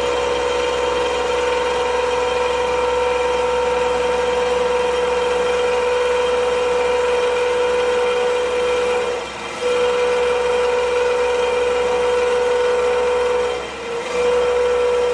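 Machine tool with a carbide cutter taking a cut across welded cast iron, a steady whine that dips briefly twice, about nine seconds in and again near the end.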